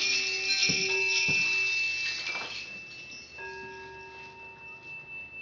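Metal chimes ringing in several steady tones, struck again about a second in, then slowly dying away.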